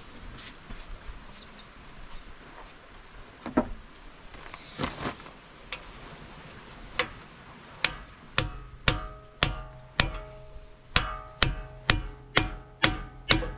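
Hammer blows on a steel bearing or seal driver, seating a part in a pickup's axle housing: a few scattered knocks, then from about halfway a steady run of strikes about two a second, each with a metallic ring.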